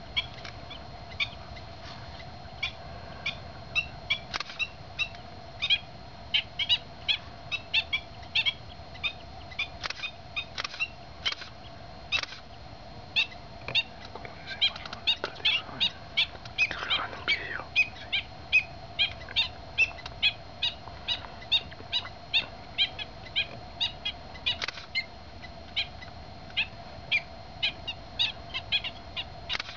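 Wading birds calling: short, sharp notes repeated about two or three times a second, over a steady faint hum.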